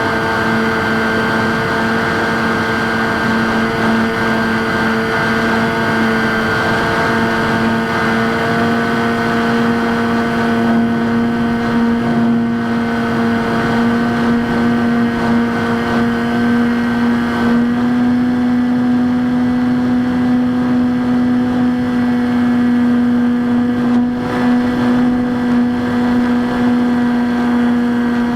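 Electric motor and propeller of a Skywalker X5 flying wing running steadily in flight, a constant pitched drone with airflow noise; the pitch steps slightly higher about two thirds of the way through.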